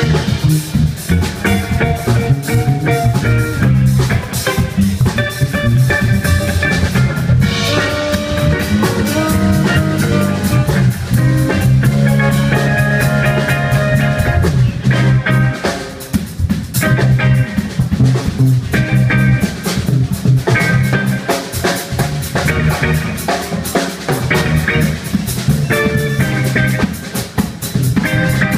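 Small live band playing: a drum kit keeping a busy beat, with electric bass, electric guitar and a melody line on top.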